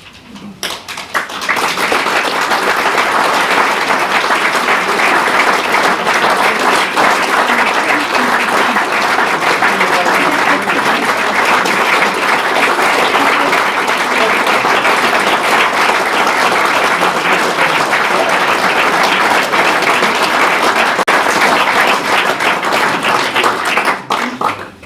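Audience applauding: a long, steady round of clapping that builds over the first couple of seconds and stops shortly before the end.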